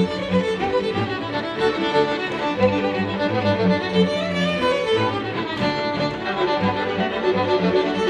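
A violin and a string quartet of two violins, viola and cello playing together, bowed, with low notes repeating in the bass beneath the higher violin lines.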